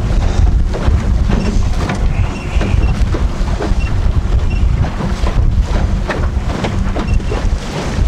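Heavy wind rumbling on the microphone aboard a small open fishing boat at sea, with a few scattered knocks.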